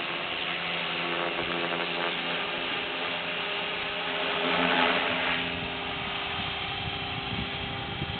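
Align T-Rex 500 electric RC helicopter in flight: steady whine of the brushless motor and gear train with the rush of the spinning rotor blades, swelling louder for a moment about halfway through.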